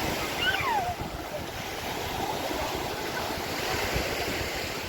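Sea waves breaking and washing ashore, with wind rumbling on the microphone; a short, high call that falls in pitch sounds about half a second in.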